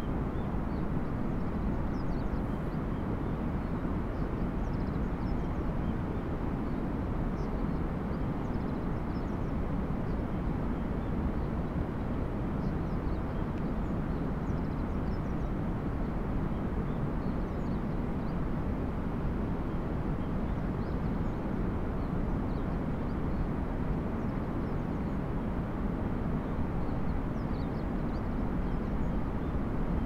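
Steady low outdoor background rumble with faint, short high chirps scattered through it.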